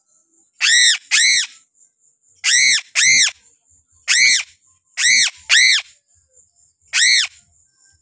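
Piping crow (Sulawesi crow) calling seven times, mostly in pairs. Each call is a short, loud squawk that rises and falls in pitch.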